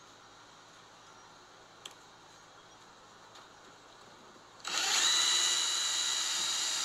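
Power drill boring a hole into plywood, starting about two-thirds of the way in: it spins up and then runs with a steady high whine.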